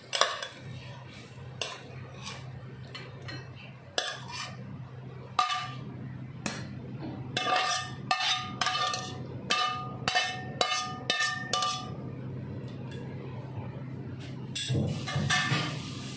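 Metal ladle and spatula knocking and scraping against a metal wok as the stir-fry is scooped out, with a quick run of ringing clinks about halfway through. A steady low hum runs underneath.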